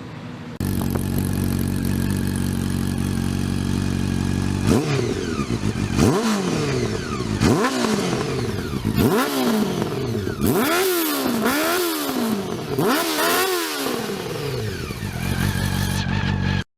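Honda CB400 inline-four fitted with an IXIL slip-on exhaust. It idles, then the throttle is blipped six or seven times in quick succession, each rev rising and dropping back. It returns to idle and cuts off suddenly near the end.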